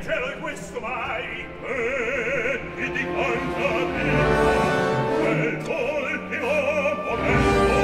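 Operatic singing with vibrato over an orchestra, with the full orchestra swelling louder about halfway through and again near the end.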